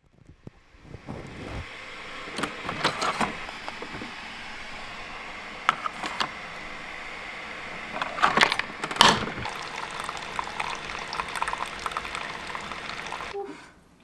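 Keurig single-serve coffee maker: sharp clicks as the lid and a K-cup pod are handled, over a steady rush of water running through the machine as it brews. The running stops shortly before the end.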